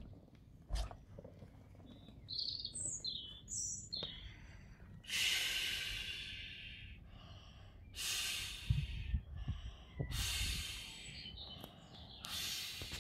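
A person blowing up an inflatable swim ring by mouth: from about five seconds in, four long, hissing breaths with short pauses between them. Birds chirp in the first few seconds.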